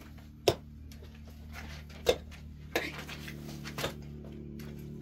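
About four sharp knocks or clinks, the loudest about half a second in, over a steady low hum.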